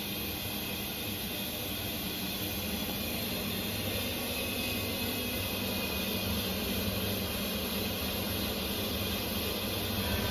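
Haas VF-8/40 HE vertical machining centre running: a steady mechanical hum with a few low tones under an even hiss, growing slightly louder near the end.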